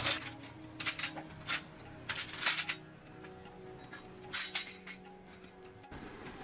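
A scattering of sharp metallic clinks and clicks from small metal parts or tools being handled, over soft background music that stops near the end.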